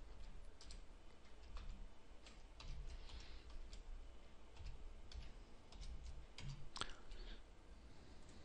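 Faint computer keyboard keystrokes clicking, a few scattered irregular taps as short entries are typed.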